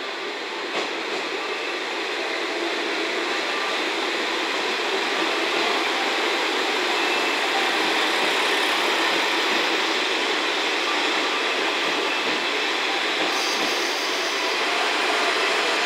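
JNR KiHa 40-series diesel railcars (KiHa 40 and KiHa 47) rolling slowly past along a station platform: a steady rumble of diesel engines and wheels on rail that grows gradually louder.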